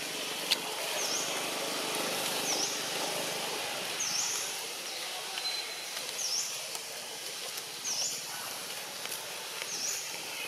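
A bird repeating a short, high call, a quick down-and-up sweep about every one and a half seconds, over steady outdoor ambient noise. A single sharp click comes about half a second in.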